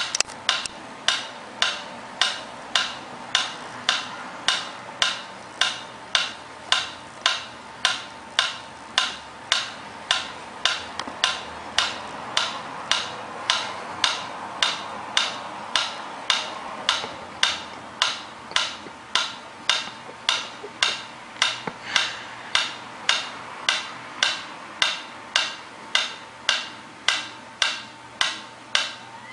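Mechanical pyramid metronome ticking at a steady beat, about two sharp ticks a second.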